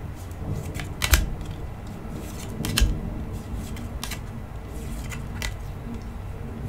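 Pokémon TCG Online code cards being handled and flicked through by hand: short, sharp card clicks and slides every second or so.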